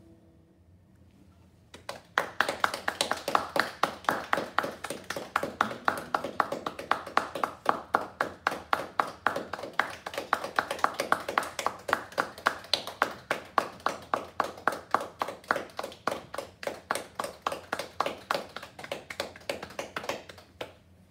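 Applause after a guitar performance: hand claps, each one heard separately, starting about two seconds in after a short quiet and stopping just before the end.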